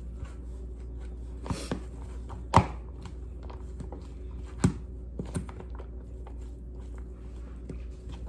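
A spoon stirring chicken salad in a bowl: soft scraping and light clicks, with two sharp knocks of the utensil against the bowl, the first about two and a half seconds in and the second near the five-second mark. A steady low hum runs underneath.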